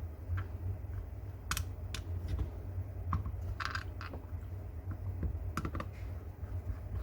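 Scattered light clicks and a short scrape of small pistol parts being handled and worked on during a firing-pin repair, over a steady low hum.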